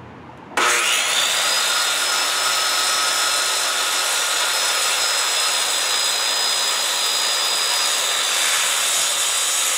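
Circular saw starting up with a quick rising whine about half a second in, then running steadily as its blade cuts through a 1x12 board.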